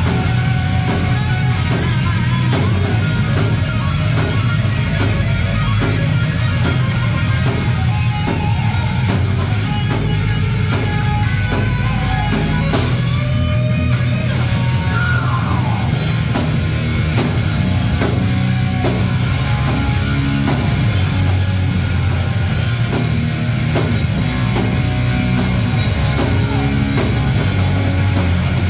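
Heavy metal band playing live: electric guitars, bass and a drum kit, loud and dense.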